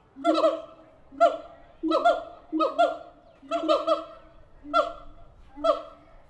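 Siamang apes calling: a rapid series of loud, short hooting barks, about two a second, many of them sliding down in pitch.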